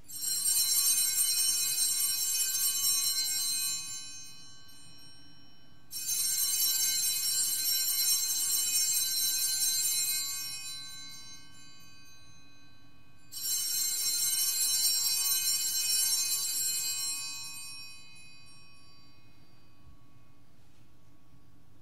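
Altar bells rung three times at the consecration of the host: three shaken rings, each lasting about four seconds and fading away, the second about six seconds in and the third about thirteen seconds in.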